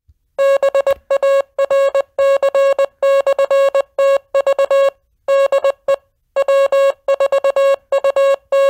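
Morse code sent as a single keyed tone: short and long beeps (dots and dashes) in groups, with brief gaps between the groups.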